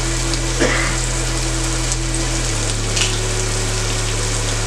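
Chopped sausage and onion sizzling steadily in hot fat in a frying pan, with a couple of small pops.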